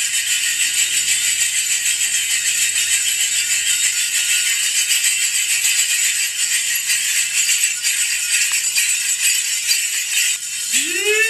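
Metal bells jingling and shimmering without a break, as from the bell belt worn by the ritual performer. About ten seconds in, a blown horn-like note starts, rising in pitch and then holding steady.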